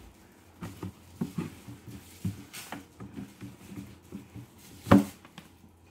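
A cloth wiping and rubbing inside the plastic bucket of a kitchen food-waste composter: irregular scuffs and light taps, then one sharp knock near the end.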